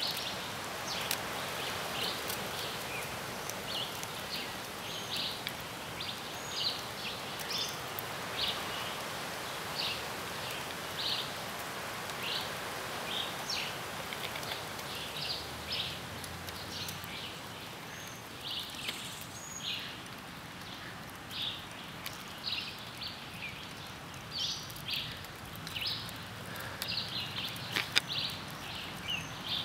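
Forest ambience: a steady hiss of background noise with many short, high chirps, one or two a second, and a single sharp click near the end.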